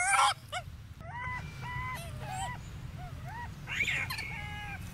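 Golden snub-nosed monkey giving a series of short, high-pitched honking squeaks, about two a second, each held level or arching up and down. A louder, rougher cluster comes at the start and again about four seconds in.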